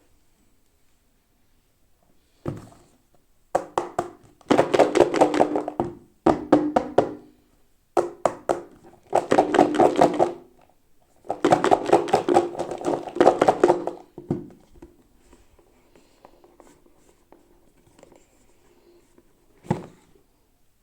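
Hands handling and rattling hollow plastic toy packaging: a thump, then long runs of rapid clicking and rattling in several bursts, and a single knock near the end.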